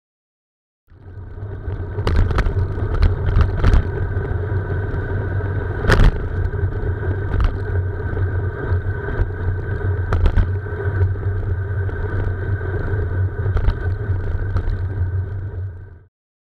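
Road and wind noise picked up by a bicycle-mounted camera while riding among motor traffic: a steady rumble with faint steady hums and scattered sharp knocks, the loudest about 6 seconds in. The sound starts a second in and cuts off suddenly near the end.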